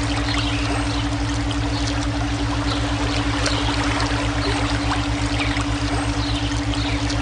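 Running water trickling and splashing steadily, laid over a synthetic brainwave track: a steady mid tone and a low, rapidly pulsing hum.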